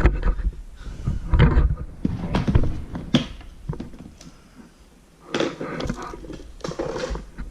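Handling noise from a vacuum cleaner being opened to get at the dirt it collected: a series of irregular knocks, clicks and short rustles, with a quieter pause about four to five seconds in.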